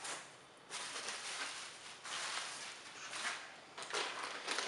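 Rustling of foam packing sheets and plastic wrap being handled in a cardboard box as a unit is unpacked, in a few short bursts.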